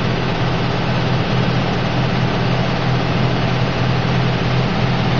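Linear vibrating screen running at the start of a cashew screening test: a steady, loud machine hum with an even noise over it, unchanging throughout.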